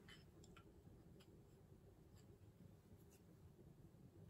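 Near silence: room tone with a few faint, light clicks of chopsticks and a ceramic plate being handled.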